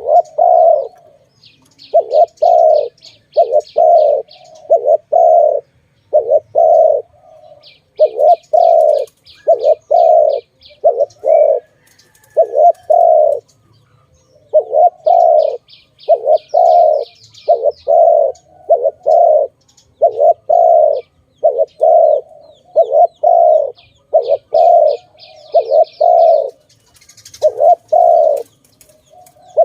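Dove cooing over and over in runs of short, low notes. Four times, a rapid series of high chirps from another bird joins in for about two seconds.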